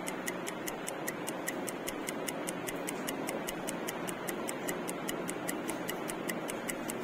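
Countdown timer ticking steadily, about four crisp, high clicks a second, over faint room noise.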